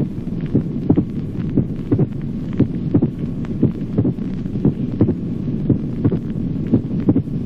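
Recorded heart sounds of a pericardial knock: in each beat the second heart sound is followed immediately by an extra, clear-sounding sound, repeating in a steady rhythm over a low hum. A pericardial knock is the sign of constrictive pericarditis.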